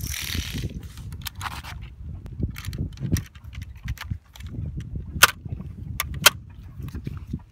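Linked 7.62 mm ammunition belt rattling as it is handled and laid into an M60 machine gun's feed tray, then two sharp metal clacks, about a second apart near the five- and six-second marks, as the feed cover is closed on the belt.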